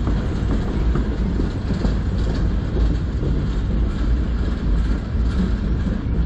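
Freight train of empty bulkhead flatcars rolling past on steel wheels, a steady rumble of wheels on rail.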